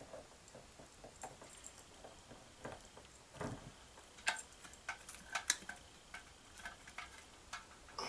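Faint, irregular clicks and light taps from hands handling the fan-light fixture's hard parts and cord overhead. There is one duller knock about three and a half seconds in, and the clicks come more often in the second half.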